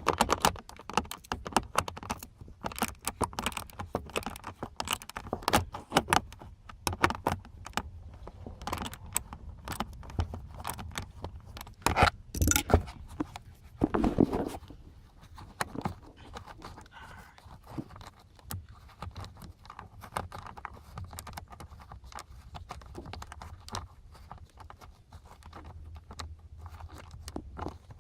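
Ratchet with a 7 mm socket clicking and rattling as it backs out a screw, with metal tool-handling clatter. The clicks come thick and fast at first and thin out after about sixteen seconds.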